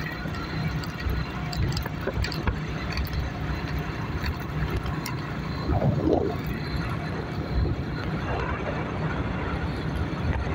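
Steady rumbling ride noise from a bike moving along a rough, broken road, with wind buffeting the microphone and a few short clicks and rattles.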